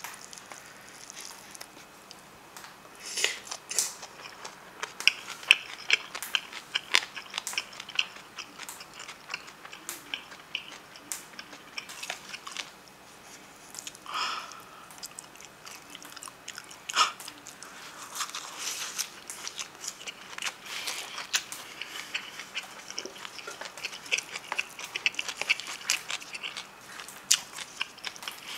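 Close-up eating sounds: irregular sharp clicks and scrapes of a utensil against a plastic takeout tray as rice is mixed into braised monkfish sauce, together with wet chewing and lip-smacking.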